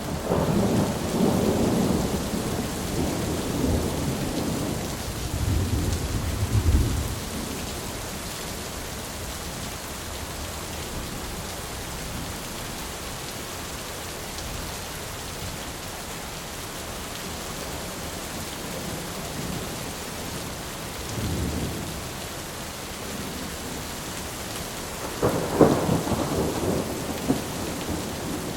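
Thunderstorm: steady heavy rain with rolling thunder, a long rumble in the first seven seconds, a short one about two-thirds of the way through, and a sharper, louder crack and rumble near the end.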